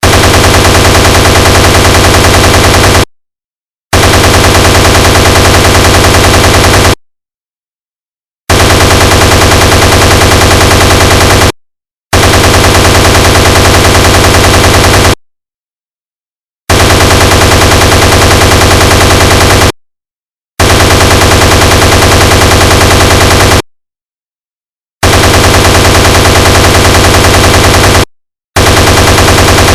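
Browning M2 .50 caliber heavy machine gun sound effect: loud bursts of rapid automatic fire, each about three seconds long, repeated about eight times with a second or so of dead silence between them.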